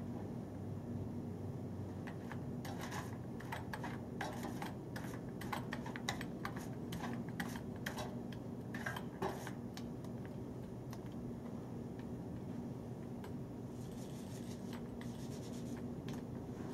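Small paint roller being rolled back and forth in a metal paint tray to load it with contact adhesive: a run of quick scratchy clicks and rattles from the roller frame against the tray, with softer rubbing later on.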